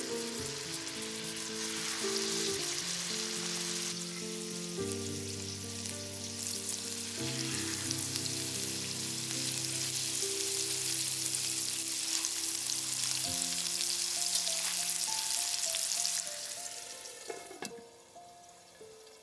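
Chicken breasts sizzling as they fry in melted butter in a cast-iron skillet, a dense steady crackle that dies down in the last few seconds.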